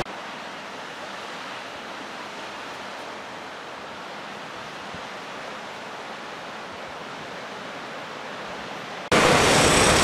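Steady, even rushing of ocean surf breaking on the shore. About nine seconds in it cuts suddenly to a much louder, brighter rush of surf and wind.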